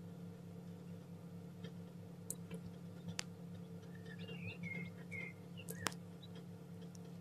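Newly hatched chicken chicks peeping in short high cheeps, several in a row a little past the middle. A few sharp clicks are heard, and a steady low hum runs underneath.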